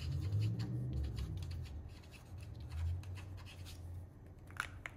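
Posca paint-marker tip scratching across black cardstock in a run of short strokes as letters are written, over a steady low hum. A couple of sharp clicks near the end.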